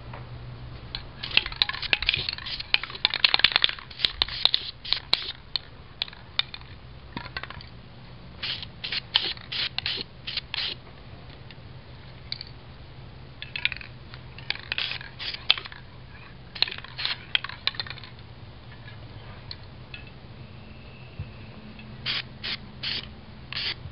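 Aerosol spray-paint can sprayed in short repeated bursts, several quick passes at a time with pauses between groups.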